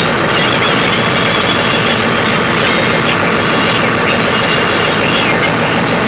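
Tractor engine running steadily, a loud, even mechanical noise close by.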